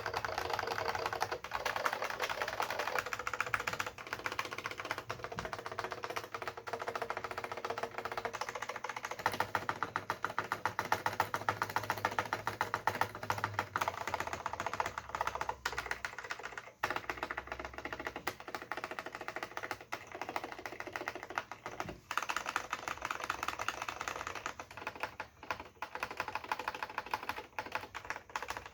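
Fast continuous typing on an AT&T Unix PC keyboard with Alps SKCM Brown switches and PBT dye-sublimation keycaps: a dense, rapid clatter of keystrokes, briefly pausing near the middle.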